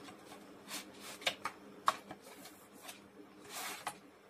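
Cardboard headset box and its plastic inner tray being handled as the tray is slid out of the sleeve: a few short rustles and taps, then a longer sliding swish near the end.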